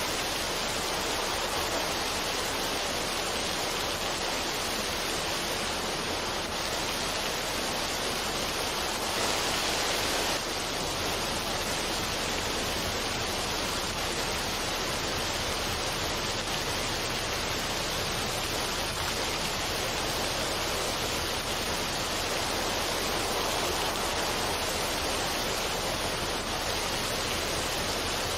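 Waterfall and mountain stream rushing over rocks: a steady, even rush of water.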